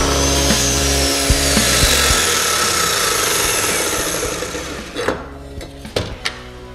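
Metabo KGSV 216 M sliding mitre saw finishing a crosscut through an ash board; the motor's whine falls steadily in pitch as the blade spins down. About five seconds in the noise has died away and a few sharp clicks and knocks follow.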